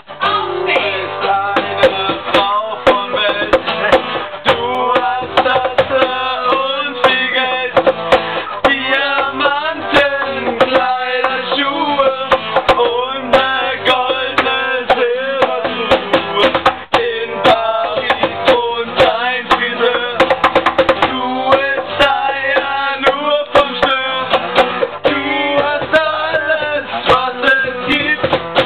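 Acoustic guitar strummed with a cajón slapped as the beat, and young men's voices singing along.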